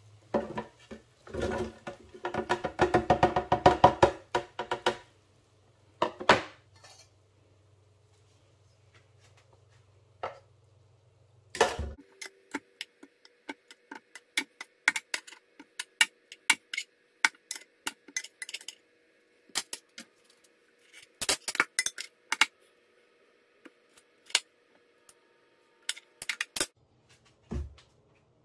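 Metal kitchen tongs clicking and knocking as roasted tomatillos, onion pieces and serrano chilis are dropped one by one into a plastic blender jar: a long series of separate clacks and taps. A few-second stretch of dense clattering comes about a second in.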